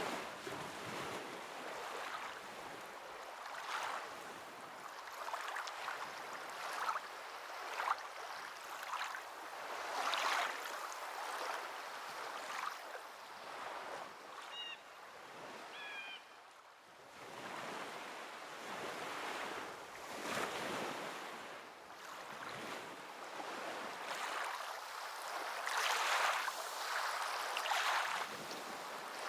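Waves washing onto a shore, the surf swelling and falling every few seconds. A few faint high chirps come about halfway through.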